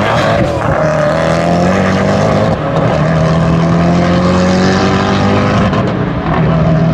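Two hypercars accelerating hard from a drag-race launch, one of them a Pagani Huayra Roadster with its twin-turbo V12. Engine notes climb in pitch, dip at gear shifts about two and a half and six seconds in, then climb again.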